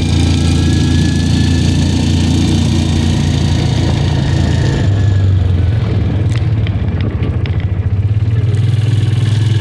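Small gas engine of a golf-cart-style buggy running while driving, a steady low drone. About halfway through the engine note changes and the high rushing hiss drops away, with a few light clicks after.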